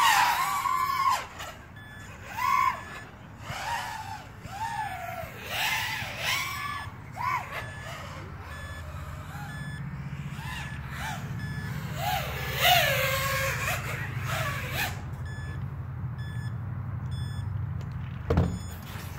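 Riot250r FPV racing quadcopter's brushless motors whining as it flies around the gates, the pitch swooping up and down again and again with each burst of throttle. In the last few seconds faint, evenly spaced beeps sound over a steady low hum.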